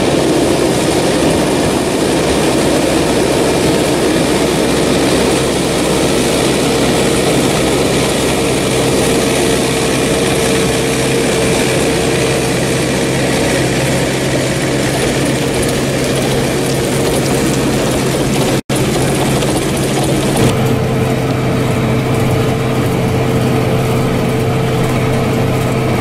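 Tractor engine running steadily under load while powering a Marshall muck spreader, with the spreader's beaters flinging muck out the back: a dense, loud drone with a steady hum through it. The sound cuts out for an instant about two-thirds of the way through, then carries on.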